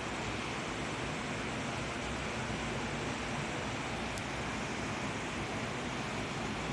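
Atlantic ocean surf: a steady, even rush of waves washing ashore, with no single wave breaking out above the rest.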